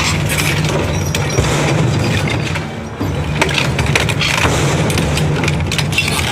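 Hammer crusher running with a steady low drone, and frequent sharp clattering impacts of material being smashed inside it.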